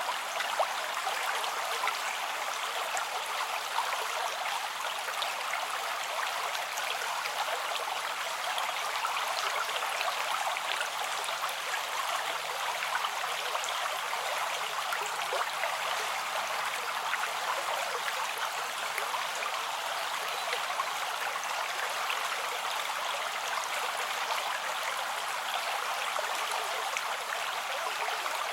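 River water flowing steadily, an even rush with no pauses.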